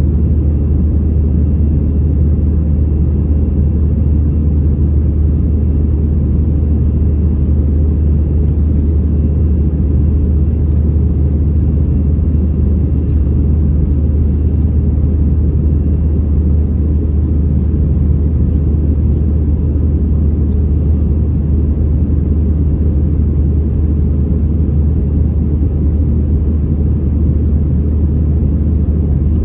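Steady low rumble of an Airbus A319-100's jet engines and airflow, heard inside the passenger cabin during the climb after take-off, with a faint steady thin tone above it.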